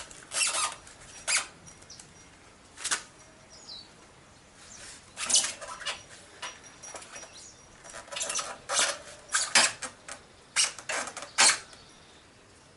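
Gloved hands pushing and working the rubber sidewall of a motorcycle's spoked front tyre on its rim: a series of short squeaks and scuffs, a few spread out early and bunching up in the second half.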